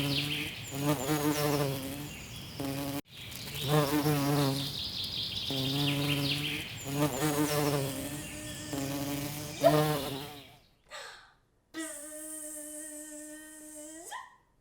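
Insect-like buzzing in repeated wavering bursts, broken off abruptly about three seconds in and then resumed. Near the end a steady held hum-like tone follows, rising in pitch as it stops.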